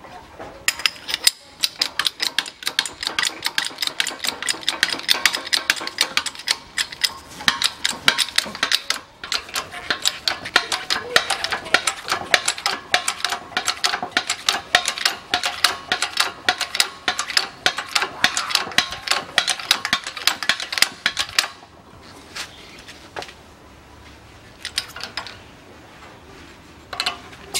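A shop press being worked to push a new front hub bearing into an ATV steering knuckle: fast mechanical clicking, several a second, for about twenty seconds, with a thin ringing tone under it in the later part. It then stops, leaving a few scattered clicks.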